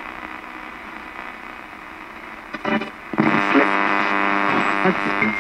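Portable radio used as a ghost box, sweeping through stations: hissing static, then a short blip, then about three seconds in a steady humming tone from a station breaks through and holds.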